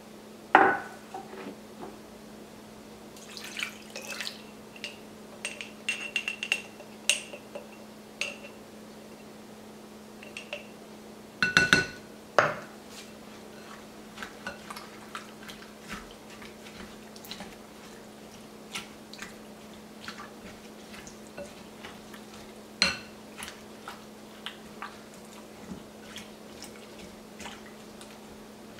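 A wooden spoon stirring food in a glass mixing bowl: scattered scrapes and knocks against the glass, with a few louder knocks, one ringing briefly, about half a second in, near the middle and about two-thirds through. A steady low hum runs underneath.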